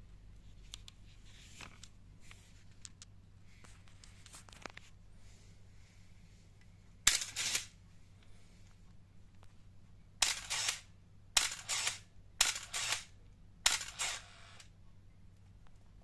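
Canon Motor Drive MA firing a Canon SLR: five separate shots, each a sharp shutter click followed at once by a short motor whir as the drive advances the film. The first comes alone, and the other four follow about a second apart. Faint handling clicks come before them.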